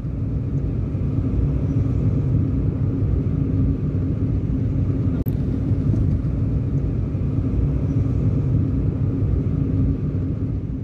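Steady low road rumble of a moving car heard from inside the cabin, with a faint hum under it.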